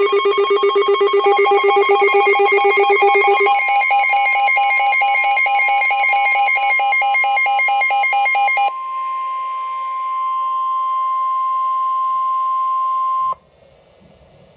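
Emergency Alert System attention tones: a rapidly pulsing, ringing electronic alert whose pitch pattern shifts upward about three and a half seconds in. About nine seconds in it gives way to a single steady tone just above 1 kHz, the Weather Radio warning alarm tone, which cuts off abruptly about a second before the end.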